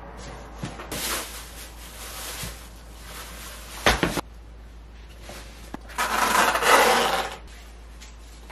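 Clothes and bags rustling as a suitcase is packed, with a sharp knock about four seconds in and a louder burst of rustling and scraping from about six to seven seconds.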